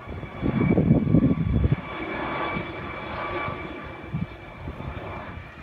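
Air ambulance helicopter approaching overhead: a steady turbine whine over rotor noise. Wind buffets the microphone in a loud low rumble from about half a second to two seconds in.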